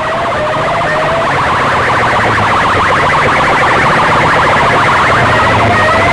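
Loud electronic siren-like sound: a fast pulsing warble with short rising sweeps repeating about once a second, over a steady low hum.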